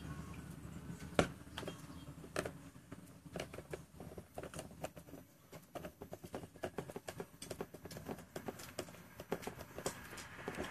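Irregular plastic clicks and taps as fingers handle and press at a welding helmet's shell, with one sharper snap about a second in.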